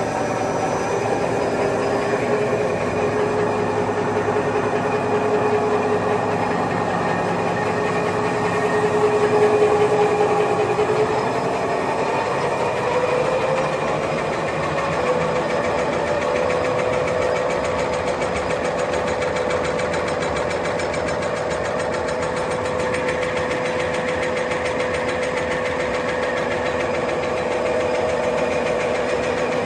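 Two-colour printing and lamination napkin paper machine running steadily, a dense mechanical clatter of rollers and folding mechanism over a steady hum. The hum rises slightly in pitch about twelve seconds in, then holds.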